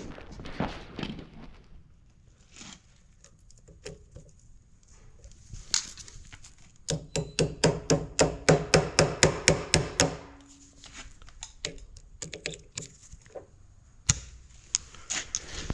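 A run of sharp, evenly spaced knocks, about five a second for some three seconds, amid scattered clunks of tools and parts being handled.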